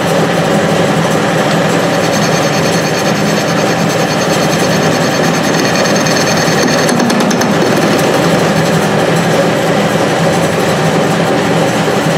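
Clausing 6930 metal lathe running steadily on its VFD drive, the spindle and gearing whirring while the tool takes a facing cut across the end of a heat-treated steel pin. A thin high whine joins about two seconds in and fades out around seven seconds.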